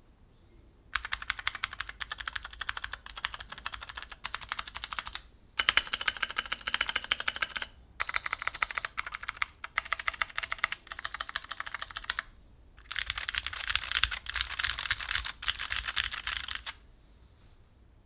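Fast typing on a stock Keychron Q4 60% mechanical keyboard with clicky Gateron G Pro Blue switches and Keychron OSA double-shot PBT keycaps: a dense stream of sharp key clicks. It comes in four runs with short pauses between them, starting about a second in and stopping about a second before the end.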